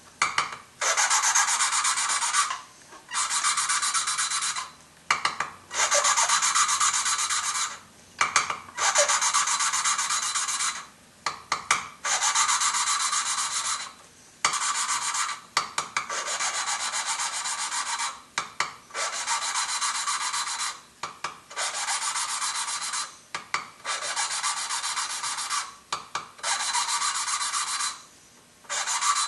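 Valve being hand-lapped into its seat on a cylinder head with abrasive valve grinding compound: a gritty grinding in about a dozen back-and-forth strokes of a second or two each, with short pauses between. The gritty sound means the seat is still being cut clean of pits; the noise goes away as the valve and seat lap smooth and the compound is spent.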